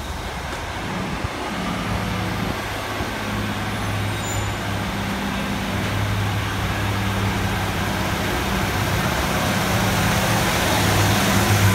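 Diesel multiple unit, a Class 153 railcar leading a Class 150, pulling away from the platform: its underfloor Cummins diesel engines run under power with a steady low note that grows louder as the train draws past.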